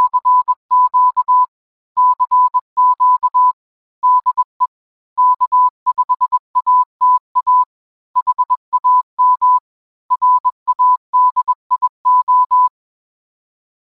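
Morse code: a single clear beep tone keyed on and off in short and long elements, the dots and dashes of CW, in groups separated by brief pauses, stopping about a second before the end.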